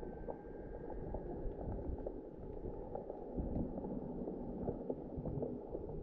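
Muffled low rumble of sea water with small scattered clicks and ticks, picked up by a camera held under the surface in shallow water.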